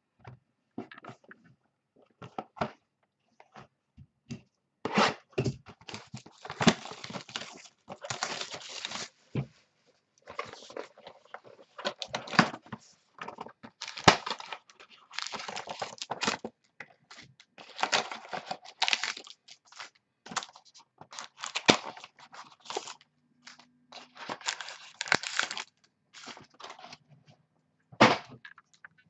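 Football trading cards and their packaging being handled close to the microphone: repeated, irregular bursts of rustling, sliding and crinkling, with a sharp click about halfway through.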